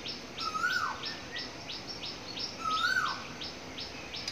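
Birds chirping: a steady run of short, high chirps about four a second, with a lower call that rises and then drops away heard twice.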